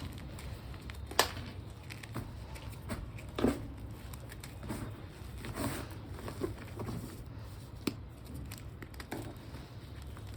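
Teal green reformed gym chalk blocks being crushed, with irregular crunches and crackles; the sharpest snaps come about a second in and about three and a half seconds in.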